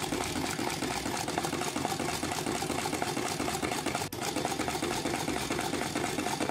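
Singer Magic Tailor mini sewing machine running at its one fixed speed, its needle mechanism clattering in a fast, even rhythm as it stitches through fabric, with a brief break about four seconds in.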